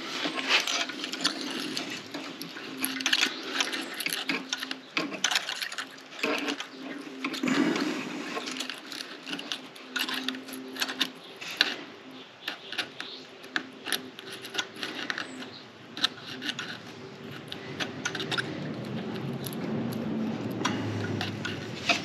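Irregular small metallic clicks and scrapes of hand tools and a feeler gauge working the rocker-arm adjusters and 10 mm lock nuts of a Honda EU3000i generator engine while the valve lash is set.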